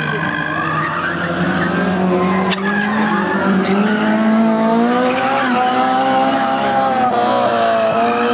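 Front-wheel-drive race car engines revving, their pitch rising and falling again and again as the drivers work the throttle through the course, with tyres squealing.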